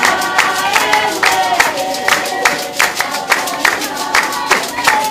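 Traditional dance troupe singing in chorus over sharp, regular handclaps, about two or three beats a second.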